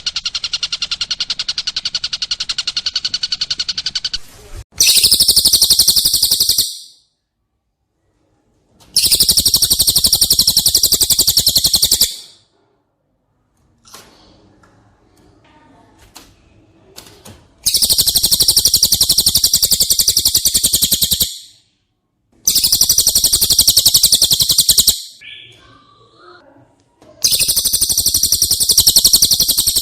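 Recorded masteran birdsong of the cililin and the tengkek buto: loud bursts of very fast, high-pitched trilling, each lasting two to four seconds with short pauses between, after a steady rapid trill at the start. A few faint chirps fill one of the longer gaps.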